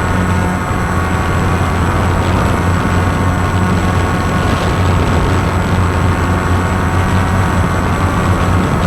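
Walkera QR X350 quadcopter's electric motors and propellers running steadily in flight: a loud, even hum with a low drone under it.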